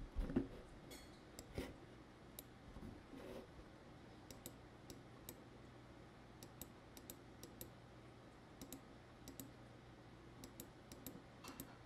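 Faint computer mouse clicks, scattered and irregular, over a low steady hum.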